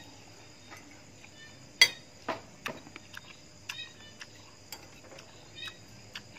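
Close-up eating sounds: wet clicks and smacks of a mouth chewing juicy watermelon, and a metal spoon tapping and scraping on a plate while scooping rice. A scatter of short, sharp clicks, the loudest a little under two seconds in.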